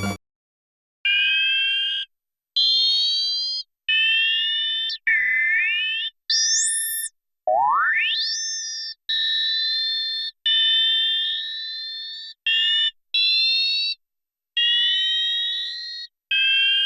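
Analog synthesizer sound-effect tones: a string of about eleven short electronic blips, each about a second long and cut off by a brief silence, with bright metallic pitches sliding upward. One longer sweep climbs steeply about eight seconds in. They are synth recreations of elements of an anime beam-cannon firing effect.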